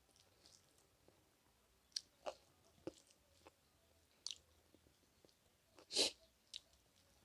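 Close-miked eating sounds: a scattering of wet mouth smacks and clicks from chewing. The loudest is a longer smack about six seconds in.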